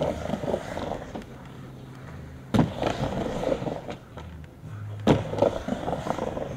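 Skateboard wheels rolling on a wooden ramp, with two sharp knocks of the board striking the wood, about two and a half seconds apart.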